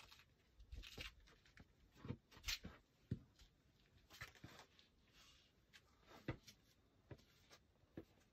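Near silence broken by faint, scattered scuffs and light knocks of a climber's shoes, hands and clothing against granite as he crawls through a narrow squeeze between boulders.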